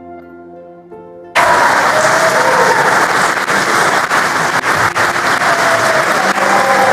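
Soft instrumental music, then about a second and a half in, a congregation bursts into loud applause that carries on over the music.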